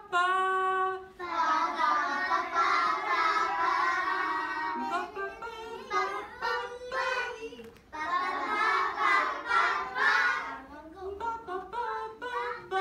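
A class of young children singing a song together in sung phrases, with short breaks between them.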